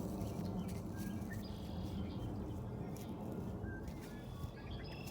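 Small songbirds chirping and calling, with many short high notes scattered throughout, over a steady low rumble of background noise.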